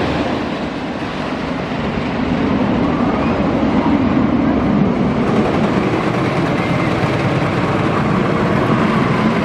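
Wooden roller coaster train running along its track during a ride, a loud steady rumble.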